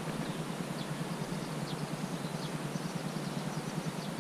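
Steady wind noise on the microphone by open water, with small birds chirping faintly now and then.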